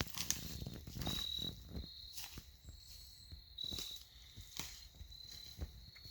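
An insect chirping in short, repeated high-pitched pulses, with two longer, louder chirps about a second in and again at about three and a half seconds, over scattered soft clicks and crackles.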